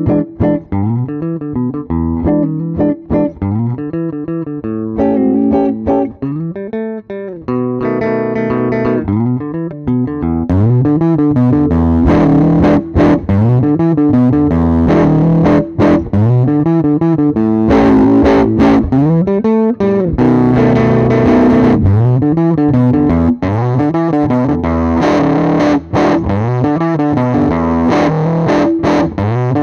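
Electric guitar, a Squier Jazzmaster, played through a Dunlop Fuzz Face Mini fuzz pedal and recorded direct, playing a riff of chords and single notes. For the first ten seconds or so the tone is darker and cleaner; after that it turns fuller, brighter and more fuzzed.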